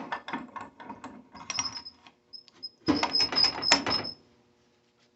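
Power drill with a titanium-coated high-speed steel bit chattering and squealing as it bites into the safe's steel plate, stopping about four seconds in.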